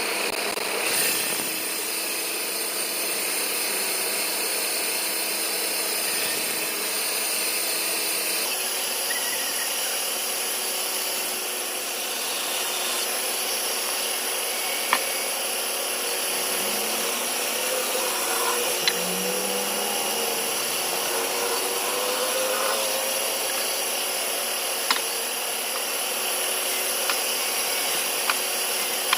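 Band saw running steadily and cutting wood, its tone shifting about eight seconds in, with a few sharp clicks later on.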